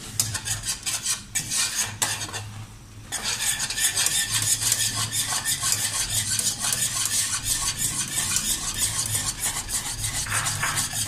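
Spoon stirring hot, just-boiled milk in a non-stick pot, scraping round the pan in quick continuous strokes, with a short pause about two seconds in. The milk powder is being stirred in to keep lumps from forming.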